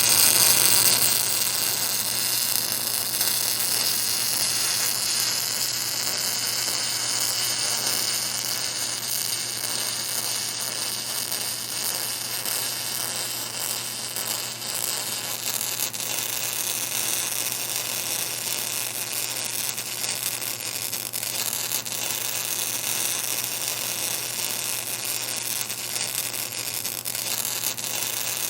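Welding arc hissing and crackling steadily over a low, steady electrical hum, a little louder in the first second or so.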